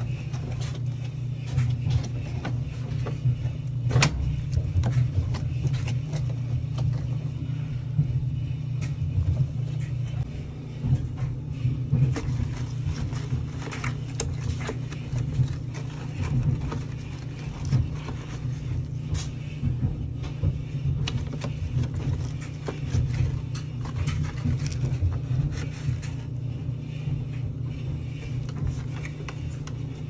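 Cloth and sponge scrubbing around the soapy tub of a top-loading washing machine, with frequent short knocks, scrapes and splashes over a steady low rumble.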